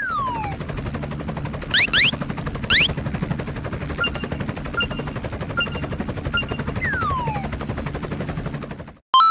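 Cartoon sound effects: a fast, steady rattling clatter with a falling whistle at the start and again about seven seconds in, quick rising chirps around two and three seconds, and a short ding repeating about twice a second in the middle. The rattle cuts off suddenly near the end, followed by a sharp ringing hit.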